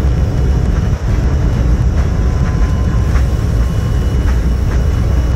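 Steady low rumble of an airliner heard from inside the cabin, with a few faint ticks over it.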